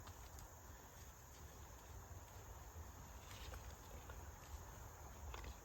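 Faint, steady chirring of crickets over a low background rumble, with a few light clicks.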